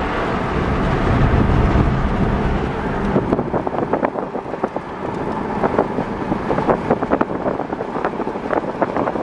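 A vehicle driving, with wind buffeting the microphone. From about three seconds in, rapid irregular clatter and knocks sound over the low rumble, typical of a rough road.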